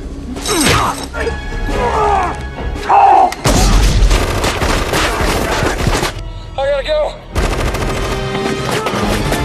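Dramatic action-film soundtrack: trailer music mixed with a heavy explosion about three and a half seconds in and bangs like gunfire, with short wavering vocal cries, one of them in a brief quieter gap about seven seconds in.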